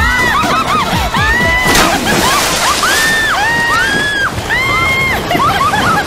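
Sea surf washing over rocks, with a burst of spray about two seconds in. Many high calls rise and fall over it, again and again.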